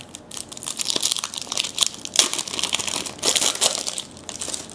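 Wrapper of a trading-card pack crinkling and crackling as it is torn open and handled: a dense run of fine crackles that swells twice, about a second in and again past three seconds, then dies away near the end.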